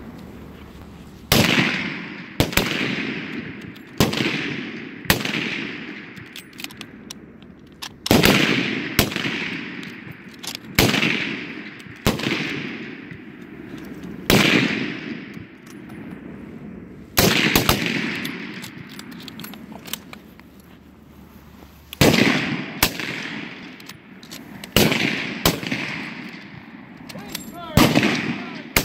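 Rifle fire from several vintage bolt-action military rifles on an outdoor range: about fifteen single shots at irregular intervals, one to three seconds apart, some louder and closer than others, each followed by a long echo.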